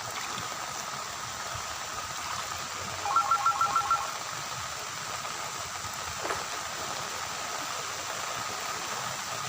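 A phone-style electronic ringtone: a quick burst of about six bright beeps, each a three-note chord, heard once about three seconds in, over a steady hiss.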